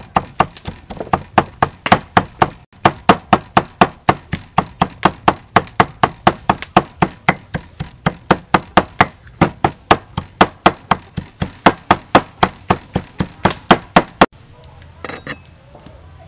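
A cleaver chopping dried red chillies on a thick wooden chopping block: a steady run of sharp knocks about four a second that stops abruptly about fourteen seconds in.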